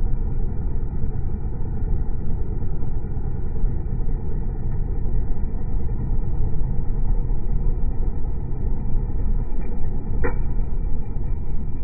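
Comfort Zone electric heater's fan running steadily, a constant low whooshing rumble of its blades and motor, with one short click about ten seconds in.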